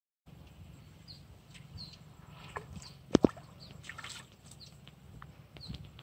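Small fish splashing at the pond surface as it is struck and pulled out on a hook and line, with two sharp clicks just before. Birds chirp in short, repeated calls throughout.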